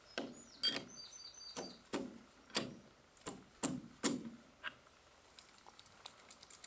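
Hammer striking a steel sleeve bolt and hanger set in concrete: about eight sharp metallic knocks with short ringing in the first four seconds, then a few lighter taps. A short bird chirp sounds about a second in.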